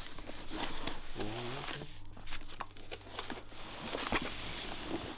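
A cardboard shipping box being opened by hand: packaging crinkling and tearing, with scattered light knocks and clicks.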